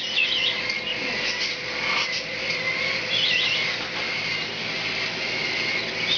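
Cockatiels chirping, with short, wavering high calls repeated several times.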